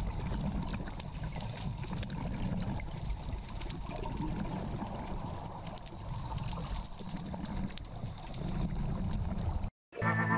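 Underwater ambient noise picked up by a dive camera: a steady rushing, trickling water sound with no distinct events. It cuts out briefly near the end.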